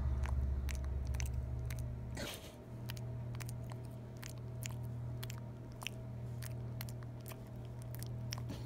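A pet monkey chewing and licking close to the microphone: small irregular mouth clicks and smacks, a few a second, over a steady low hum.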